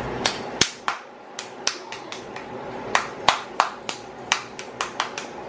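A young child clapping his hands, about fifteen light, sharp claps at an uneven pace.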